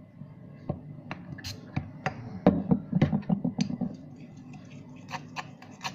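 Irregular clicks and knocks of slime ingredients being stirred in a container, just after water has been added to the mix, busiest in the middle.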